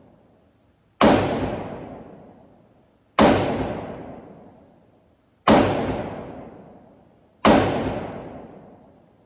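Four gunshots about two seconds apart, each sharp crack followed by a long fading echo.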